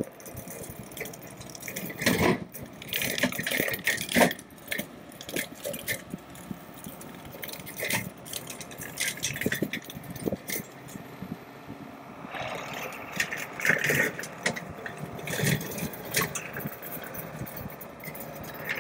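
Tractor-mounted chain slasher (Griffith Jungle Buster) cutting through gorse: irregular cracking, snapping and clattering as its chain rotor smashes the woody stems, over a steady machine noise. The cracks come thickest in two louder stretches, a couple of seconds in and again just past the middle.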